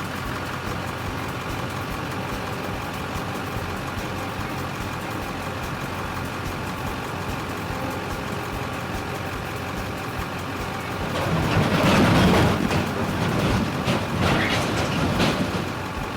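A vehicle engine running steadily, growing louder and rougher a few seconds before the end.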